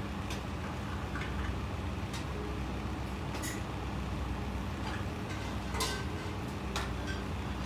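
A steady low hum, with a handful of short, light clicks and taps scattered through it, such as painting tools touching the wooden box.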